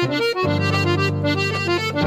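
Piano accordion playing a lively melody with a keyboard piano accompaniment, a steady low chord sustained underneath.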